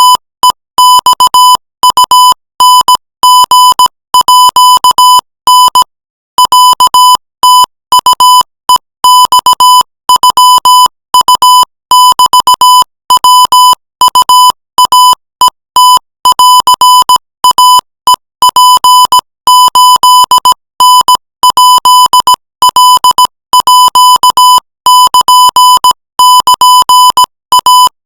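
Morse code sent at 20 words per minute as a single buzzy beep tone keyed on and off in dots and dashes, spelling out Thai text. A slightly longer pause about six seconds in marks a space between words.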